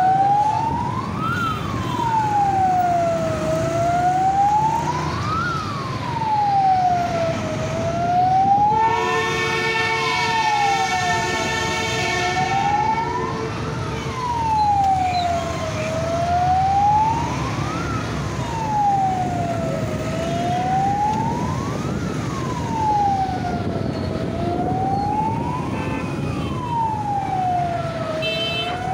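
Fire engine siren wailing, its pitch rising and falling about once every four seconds without a break, over street traffic rumble. A long horn blast sounds for about four seconds near the middle.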